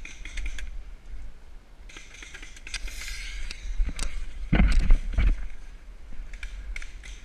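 Handling noise of a paintball marker and gear, with scraping and crackling of dry fallen leaves as the player moves, scattered clicks, and a heavy low knock about four and a half seconds in.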